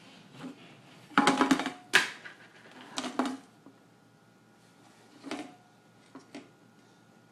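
Bursts of clattering and rattling of small hard objects: a long rattle about a second in, a sharp knock at two seconds, another rattle around three seconds, and a shorter one past five seconds.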